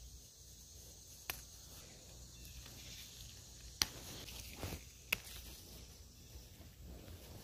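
Garden herb stems snapped off by hand: three sharp snaps spread across a few seconds, with leaves rustling between them.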